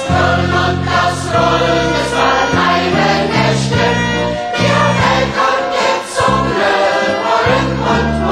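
Music: a choir singing a song over a low bass line.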